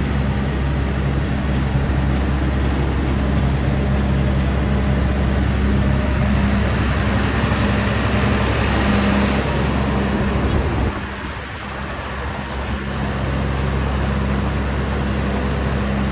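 A large engine running steadily with a low, even note; its sound drops away briefly about eleven seconds in, then comes back.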